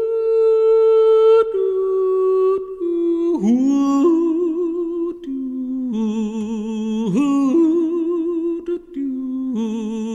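Unaccompanied wordless humming of a slow melody: long held notes stepping from pitch to pitch, with sliding scoops into a couple of notes and vibrato on the later ones.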